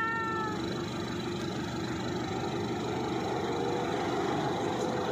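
Pickup truck's diesel engine running steadily under load as it climbs a steep, muddy dirt track, pushing out black exhaust smoke.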